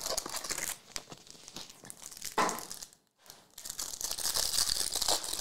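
Cardboard hobby box of trading cards being torn open, then the clear plastic film on a card pack crinkling as it is peeled off, steadily from about four seconds in.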